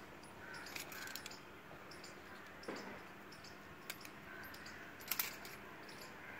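Faint handling sounds as copper strip is worked around a black tube: scattered light metallic clicks and ticks, the sharpest cluster about five seconds in. Birds chirp faintly behind.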